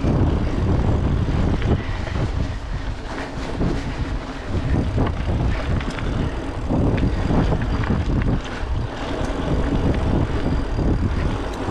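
Wind buffeting the microphone in an uneven low rumble, with the crunch and rattle of a bike's tyres rolling over a dirt trail.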